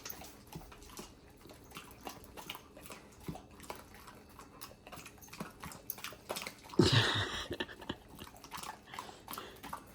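Faint scattered clicks and small handling noises, with a dog making one short low vocal sound about seven seconds in.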